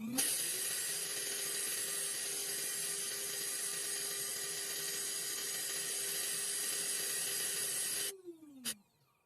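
A small electric motor tool spins up, runs steadily with a strong airy hiss and a steady hum, then winds down with a falling pitch about eight seconds in and stops.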